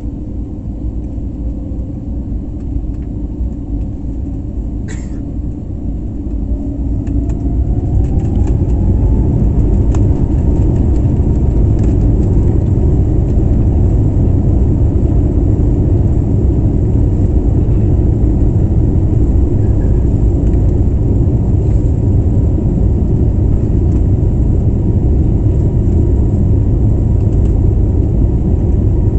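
Airliner engines heard from inside the cabin during takeoff: a rising whine as they spool up, then from about eight seconds in a loud, steady rumble of takeoff thrust and the runway roll. A brief click about five seconds in.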